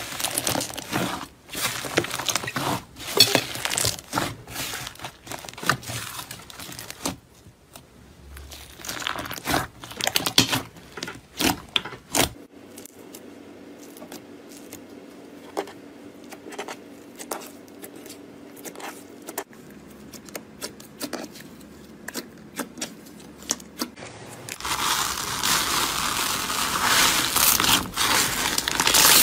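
Slime being squished, poked and stretched by hand: dense crackling and clicking. It goes quieter and sparser about twelve seconds in, then loud and dense again near the end.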